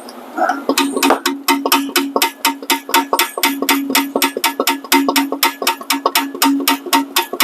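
Ratchet wrench clicking rapidly, about six clicks a second, as a bolt is loosened, over a steady low hum.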